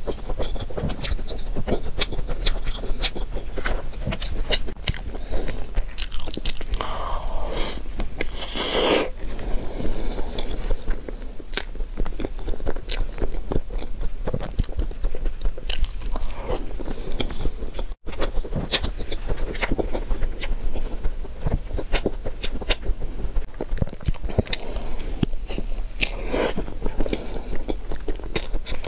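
Close-miked chewing and mouth sounds of someone eating a soft matcha towel-roll crepe cake filled with cream and red beans, with many small wet clicks and smacks. There are a couple of louder noisy bursts, about nine seconds in and again near the end.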